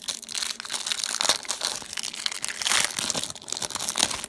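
Printed foil-and-plastic packets of mosquito repellent patches crinkling and crackling continuously as they are handled and opened by hand.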